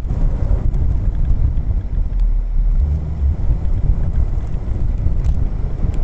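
Mercedes R107 on the move at around 20 mph, heard from inside the car: a loud, steady low rumble of engine and road noise, with wind buffeting the microphone.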